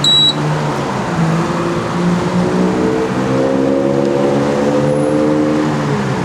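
A fuel pump's card reader gives a short, high beep at the start. A car engine runs nearby through the rest, its note rising slowly over several seconds before it stops near the end.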